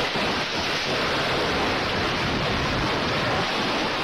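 Steady, loud rushing noise, like wind and road noise, in a vehicle that has just crashed and is slowing from highway speed. There are no separate knocks or engine tone in it.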